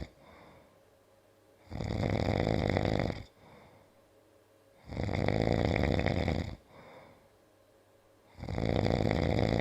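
A man snoring loudly: three long snores about three seconds apart, each followed by a short, much softer breath.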